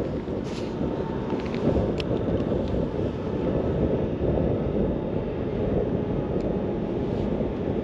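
Wind buffeting the microphone: a steady low rumble, with a few faint ticks in the first couple of seconds.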